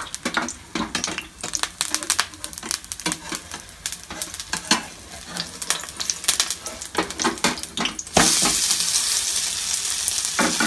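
A spatula scraping and clicking against a frying pan as a green-corn roti is loosened for turning. About eight seconds in, a loud steady sizzle of oil starts suddenly as the roti is flipped onto its uncooked side.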